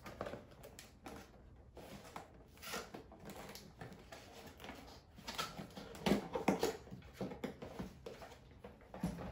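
Cardboard gift box being opened and a cut-glass bowl taken out of its packaging: irregular rustling, scraping and light knocks of cardboard and wrapping, busiest a little past the middle.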